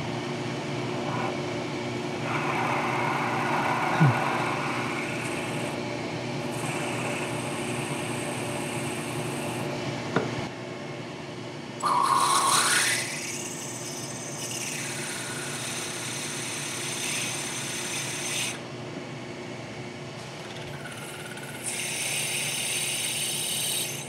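Milling machine spindle running while a drill cuts into a bronze crank arm: a steady motor hum under a scraping cutting noise that changes in character several times, with a brief rising whine about halfway through.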